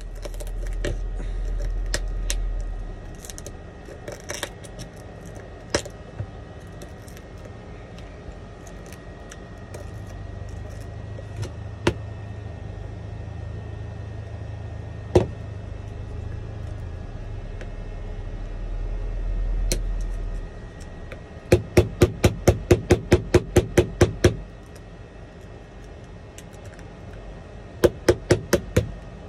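Shattered iPhone 11 back glass being chipped off the frame with a metal tool: scattered sharp clicks, then a quick run of about a dozen sharp taps at about four a second, and a few more taps near the end.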